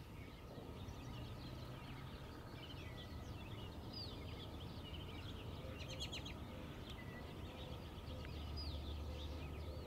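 Faint outdoor ambience: scattered bird chirps and calls over a low steady hum.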